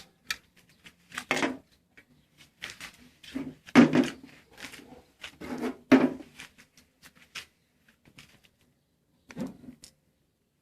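A run of irregular knocks and clicks from hard objects being handled, with two louder knocks about 4 and 6 seconds in.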